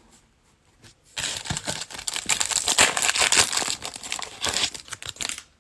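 Foil wrapper of a football trading-card pack crinkling and tearing as it is ripped open by hand. It starts about a second in and runs for about four seconds.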